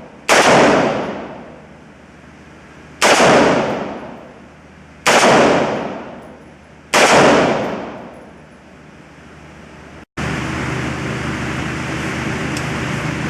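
Four gunshots about two seconds apart, each ringing out and fading over about a second. About ten seconds in the sound cuts out briefly and gives way to a steady rushing noise.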